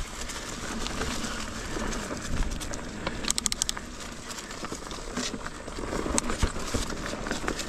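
Ibis Ripley AF mountain bike rolling slowly over a rooty dirt trail: tyres on dirt and roots, with frequent knocks and rattles from the bike. A quick run of clicks comes about three seconds in.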